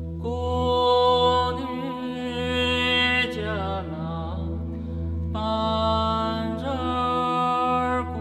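Buddhist chant sung over a steady low drone. One long sung phrase begins just after the start and slides down in pitch near the middle, and a second long phrase starts about five seconds in.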